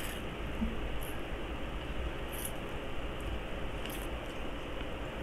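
Mouth sounds of eating cup noodles: slurping and chewing, with a few short wet smacks about one, two and a half and four seconds in, over a steady background hiss.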